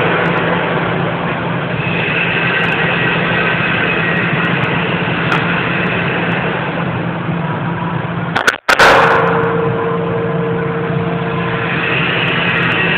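Steady, loud machine noise with a low hum under a hiss. About two-thirds of the way through it is broken by a split-second dropout and then a sharp crack.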